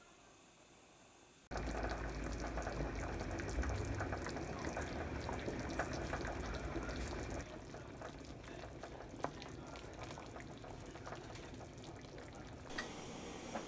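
Water running from a kitchen tap into a sink, splashing with many small crackles. It starts abruptly about a second and a half in and eases to a lighter flow about halfway through.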